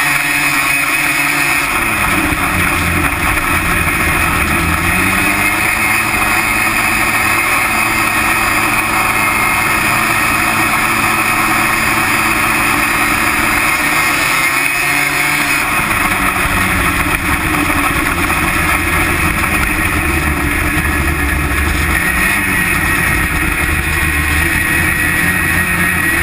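Snowmobile engine running hard, heard close to its CVT clutches and drive belt, with the engine speed shifting about a second in and again around the middle.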